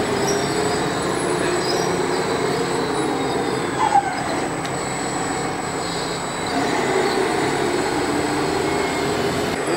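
Electric motors and gearing of radio-controlled construction models running steadily with a grinding whine, with a brief louder blip about four seconds in.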